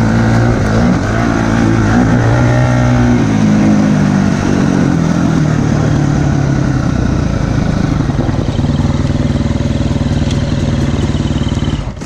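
2005 KTM 250 SX-F single-cylinder four-stroke dirt bike engine running under way, its pitch rising and falling with the throttle in the first few seconds, then running steadier.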